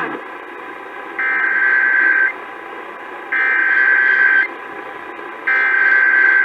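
Emergency Alert System SAME header data bursts heard over radio: three buzzy bursts, each about a second long, separated by short gaps of steady hiss. They mark the start of a new alert, here a flash flood warning.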